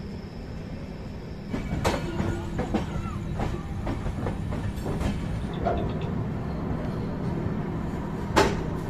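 Una Jan Shatabdi's LHB passenger coaches running along the track: a steady low rumble that gets louder about a second and a half in, with scattered clicks and knocks and one sharp knock near the end.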